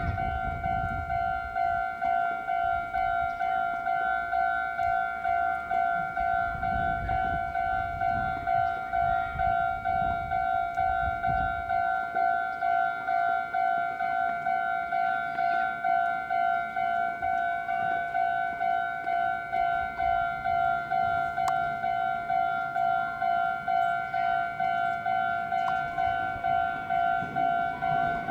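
Japanese railway level-crossing alarm bell ringing its electronic "kan-kan" tone, an even repeating ding. A low rumble runs under it for about the first twelve seconds.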